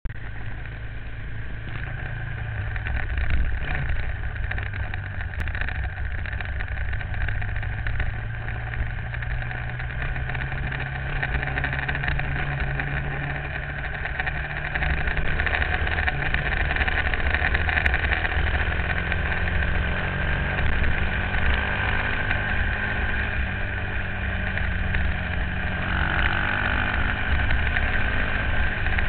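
Motorcycle engine running under way, its pitch rising and falling with throttle and gear changes, over a heavy low rumble of wind noise on the bike-mounted microphone.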